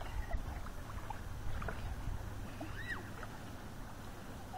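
Lakeshore ambience: a low rumble with faint scattered high chirps, and one short rising-and-falling call about three seconds in.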